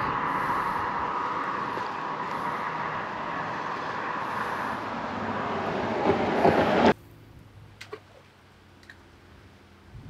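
Steady rushing noise of road traffic passing on the highway bridge, cut off suddenly about seven seconds in. A much quieter stretch follows, with a couple of faint clicks.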